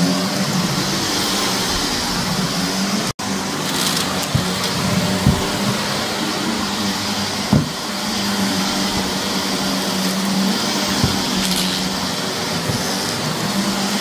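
Vacuum cleaner running steadily over carpet, with a few sharp crunches as grit and debris are sucked up. The sound cuts out for an instant about three seconds in.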